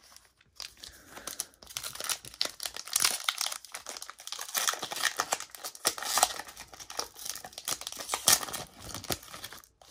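Foil trading-card pack being torn open by hand, its wrapper crinkling and crackling in a dense, irregular run of rustles.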